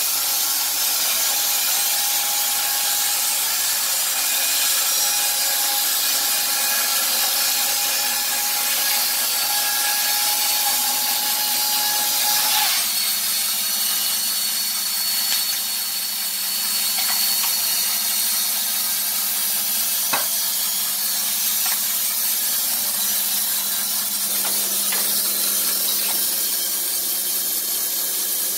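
Wood-Mizer LT15 band sawmill with its electric motor and band blade running, a steady hiss with a faint whine; the tone shifts about halfway through.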